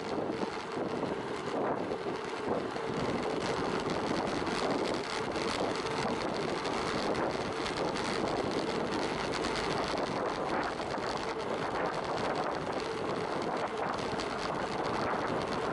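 Wind rushing over the microphone of a camera riding along on a moving bicycle, a steady rushing noise.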